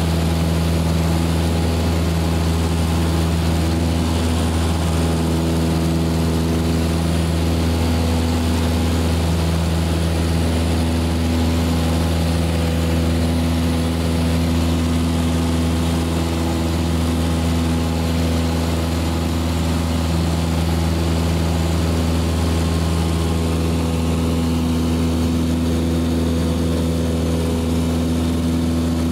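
Cessna light aircraft's piston engine and propeller running steadily in flight, a low, even drone heard from inside the cabin.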